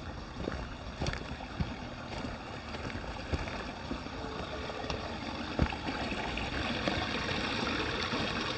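Steady outdoor rushing noise with irregular light ticks and taps, growing slightly louder toward the end.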